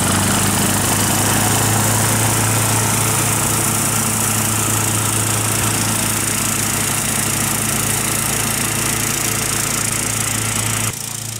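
Wolf G. Cart ride-on mower's engine running steadily under load as it mows grass, a constant low hum under a broad high hiss. The level drops suddenly near the end.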